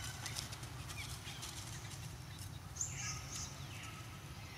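Faint animal calls over a steady low background rumble, with one brief higher call about three seconds in.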